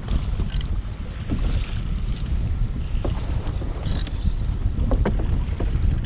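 Strong wind buffeting the microphone over sea noise on a small sailing raft in a squall, with a few short knocks from handling the gillnet.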